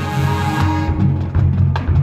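Marching band playing, with sustained low notes and, in the second half, a run of quick, evenly spaced drum strokes.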